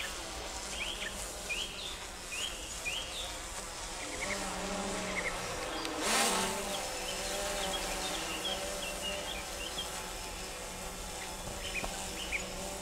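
Quadcopter drone flying overhead, its rotors a steady buzzing hum that rises and falls in pitch as it manoeuvres, with a brief rush of noise about six seconds in. Small birds chirp over it again and again.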